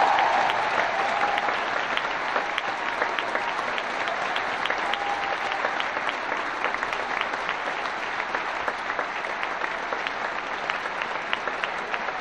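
Large concert-hall audience applauding: dense, steady clapping, a little louder in the first couple of seconds and then even.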